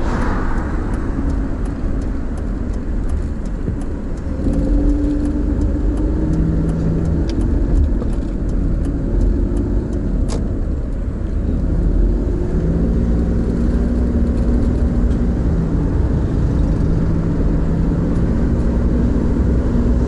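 Car engine and road rumble heard from inside the cabin while driving. The engine's hum steps up and shifts in pitch as the car gathers speed, growing louder about four seconds in.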